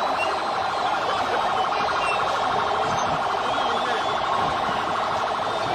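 A large crowd shouting in a steady, loud din, with faint high tones sliding up and down over it.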